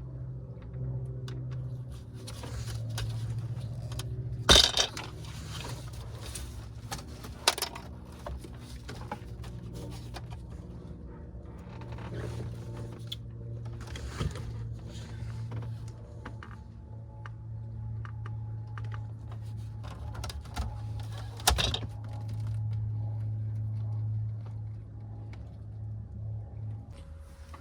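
Plastic dash trim of a 1999 Toyota 4Runner being worked loose by hand: rattling and tapping of the panels with a few sharp snaps of retaining clips letting go, the loudest about four and a half seconds in and again near twenty-one seconds. A steady low hum runs underneath.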